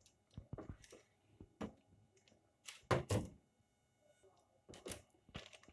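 Sparse light taps and knocks, the loudest two close together about three seconds in, as the peanut brittle slab on its baking paper is handled on the kitchen counter.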